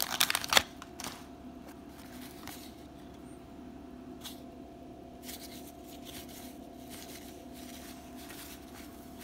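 A wax-paper card pack wrapper crinkling briefly at the start as the cards are pulled free, then the faint slide and tick of cardboard trading cards being thumbed through one at a time, over a steady low hum.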